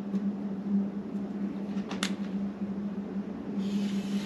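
A steady low hum, with one light click about halfway through. Near the end comes a scratchy hiss as a marker is drawn along a straight-edge level across bare sheet steel.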